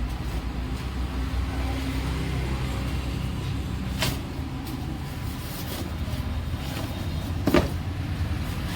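Steady low rumble of a running motor vehicle, with two sharp knocks, one about four seconds in and a louder one near the end.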